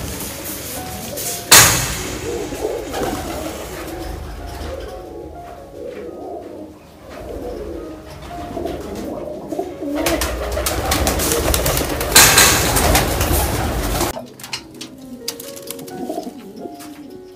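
Domestic flying pigeons cooing in a small loft, many overlapping coos. There is a sudden loud clatter about a second and a half in, and a louder stretch of noise from about ten to fourteen seconds in.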